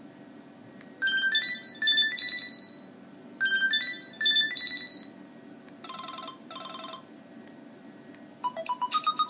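LG KS360 mobile phone playing its built-in ringtones through its small loudspeaker: a short electronic phrase of quickly rising notes, played twice with a pause between, then a brief two-note pattern, and a different, faster melody starting near the end.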